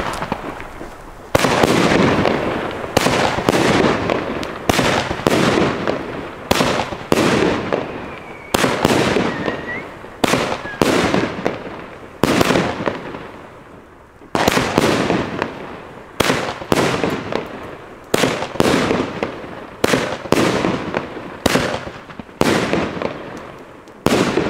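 Argento Orchidee 13-shot gold firework battery firing: a long series of bangs, one or two a second, each trailing off in a fading rush of noise.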